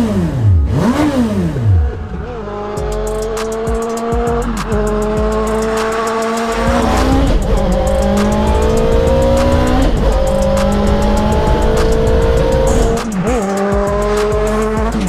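Suzuki Bandit inline-four motorcycle engine in a Suzuki Super Carry van, blipped twice, then accelerating hard up through the gears, its pitch climbing and dropping back at each of about four upshifts.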